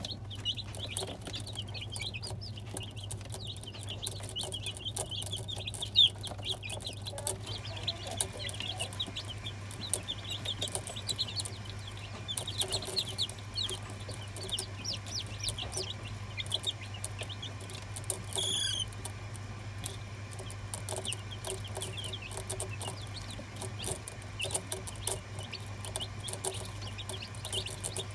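Young chicks cheeping continuously, many short high peeps overlapping one another, over a steady low hum.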